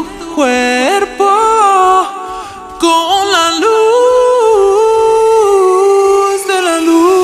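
Music: a singing voice with no bass or drums under it, sliding between notes in the first half and then holding one long note.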